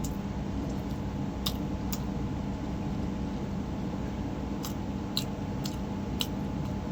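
Steady low background hum with a few faint, sharp clicks scattered through it: mouth and chewing sounds of someone eating a meal.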